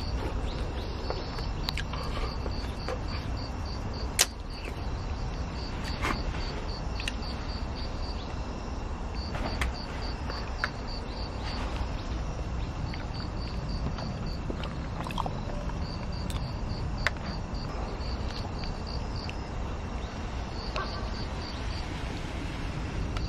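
An insect chirping in trains of quick, evenly spaced high pulses, about five a second, pausing now and then, over a steady low outdoor rumble. Scattered sharp clicks and taps, the loudest about four seconds in.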